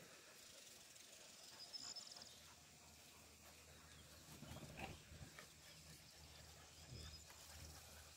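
Near silence, with a few faint short sounds from Rottweiler puppies at play, one about halfway through and another near the end.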